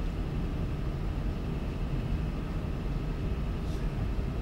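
Steady low rumble and hum of room background noise, with no speech.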